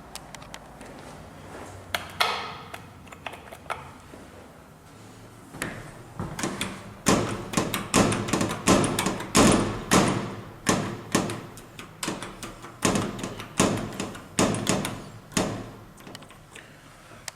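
A run of sharp, echoing knocks, about two a second for some ten seconds, after a single knock about two seconds in.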